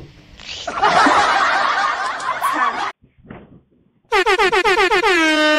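Comedy sound effects: a noisy burst lasting about two seconds, then after a short pause a loud horn-like tone that wobbles rapidly as it slides down in pitch and settles into a held note.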